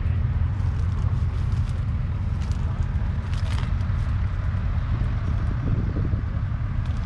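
John Deere 3650's 5.9-litre six-cylinder diesel engine idling with a steady low rumble.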